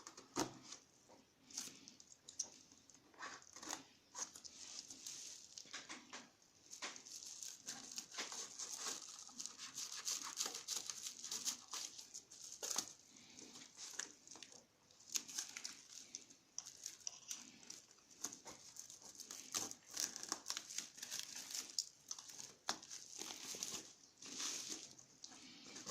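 A parcel's packaging being crinkled and torn open by hand: a continuous irregular rustling and crackling with many short sharp snaps.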